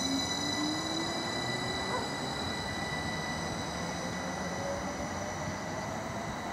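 Class 333 electric multiple unit pulling away and accelerating. Its traction motor whine rises steadily in pitch over the rumble of the wheels on the track, which slowly fades as the train recedes.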